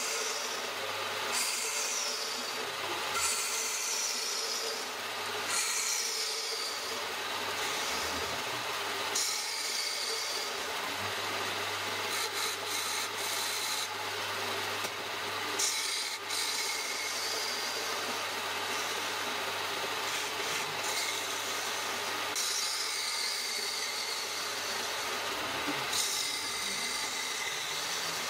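Wood lathe running with a steady low motor hum while the spinning wooden plate blank is worked with a continuous rasping rub against the wood, and a sharper, higher stroke comes every few seconds.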